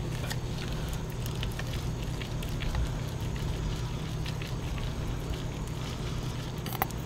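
Hand-operated cone-type wheel-bearing grease packer being pressed down to force grease through a wheel bearing, giving scattered small clicks, with a pair of sharper clicks near the end. A steady low hum runs underneath.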